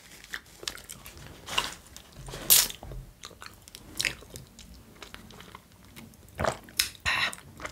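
Close-miked eating and drinking sounds: chewing, with sips of juice through a straw from a small carton. The sounds come as scattered short clicks and wet bursts, louder about two and a half seconds in and near the end.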